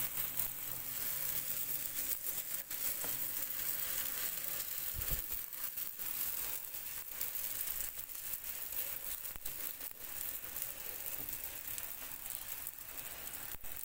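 Msemen (folded Moroccan flatbread dough) sizzling steadily as it cooks on a hot frying pan, with a few soft taps as hands press it flat.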